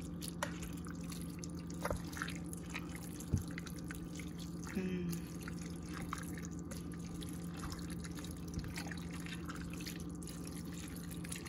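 Wet squelching and dripping of a spoon stirring a thick rabbit-and-cabbage stew in a slow cooker, with scattered light clicks of the spoon against the pot, over a steady low hum.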